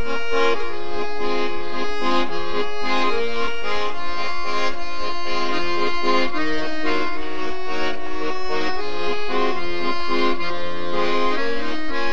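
Accordion playing an instrumental passage: held chords with a melody line moving above them, and no singing.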